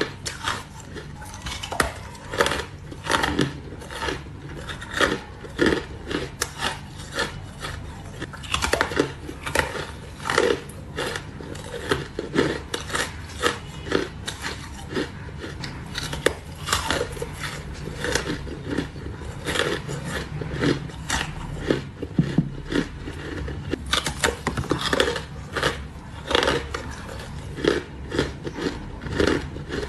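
Cone-shaped ice cubes being bitten and chewed close to the microphone: a continuous run of sharp, irregular crunches and cracks.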